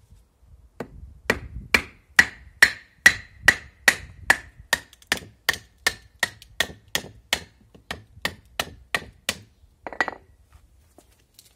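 Ganzo 7453 folding knife being batoned into a small stick: about twenty even blows, two to three a second, each with a short metallic ring. A rougher crackling sound comes near the end.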